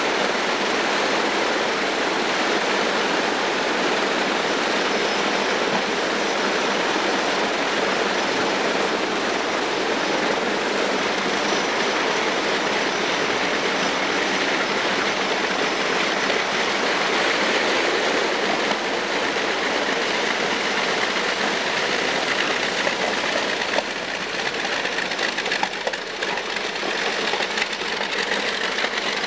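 Wright R-3350 18-cylinder radial engines of a Lockheed Super Constellation running on the ground, a loud steady roar that eases slightly about three-quarters of the way through.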